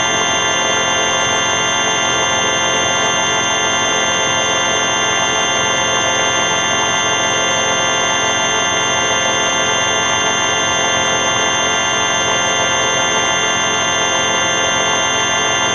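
Loud, steady electronic buzzing drone made of many stacked tones, a sound run through the 4ormulator v5 distortion effect. It holds at one level without changing.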